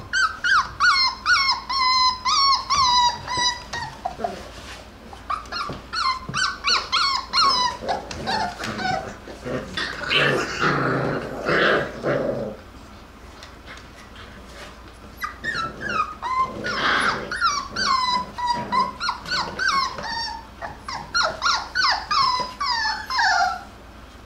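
Jackabee (beagle–Jack Russell cross) puppies wrestling: runs of quick, high-pitched yips and whines, several a second, with a rougher growling stretch about ten seconds in and a quieter spell just after it.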